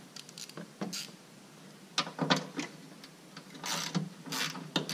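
Metal hand tools clicking and clinking in short, irregular bursts as a bolt is worked loose, with a few brief scrapes.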